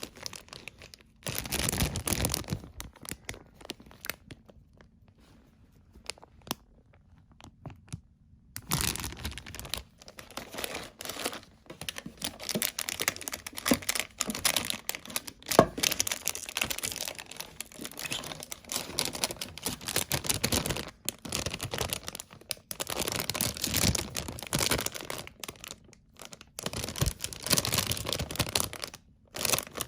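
Packaging from a model kit unboxing being torn open and crinkled by hand, in irregular bursts. There is a quiet pause of a few seconds near the start.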